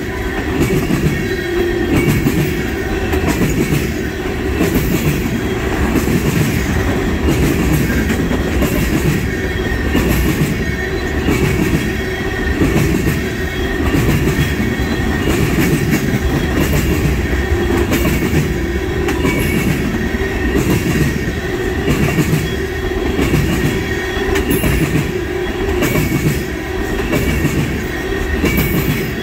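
Railroad tank cars of a freight oil train rolling past close by: a steady rumble of steel wheels on rail with a regular clickety-clack, about once a second, as the wheel sets pass over the rail joints, and a thin steady wheel squeal above it.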